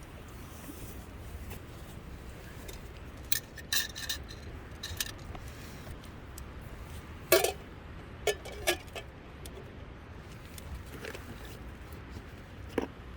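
Camp cookware and utensils being handled: scattered light clinks, some briefly ringing, and a few sharper knocks, the loudest about seven seconds in and near the end. Underneath, a steady low wind rumble.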